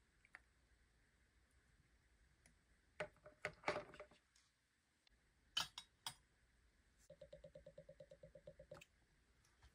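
Miniature metal cookware being handled: a few light clicks and clinks, then a rapid even rattle of about ten ticks a second for nearly two seconds.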